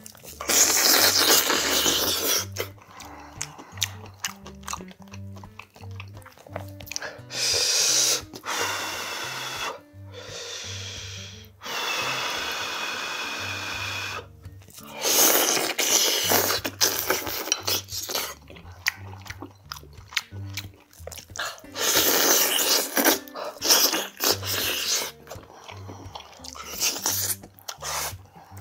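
Mukbang eating sounds: loud slurping and sucking bursts, with chewing between, as meat is eaten off pork bones by hand. Quiet background music with a low bass line runs underneath.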